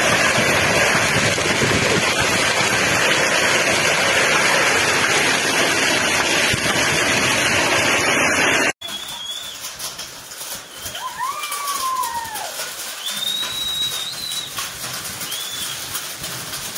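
Hail and rain coming down hard, a dense steady hiss that cuts off abruptly about halfway. After it, a quieter outdoor stretch with a few short, arching whistled calls.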